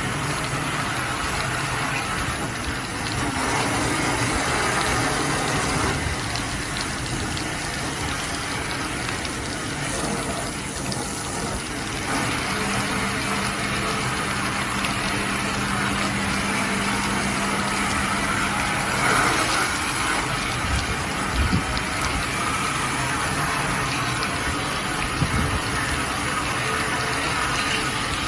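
High-pressure water torch spraying and rinsing an air conditioner's cooling unit: a steady rush of water, with a low hum held for several seconds about halfway through and a few knocks near the end.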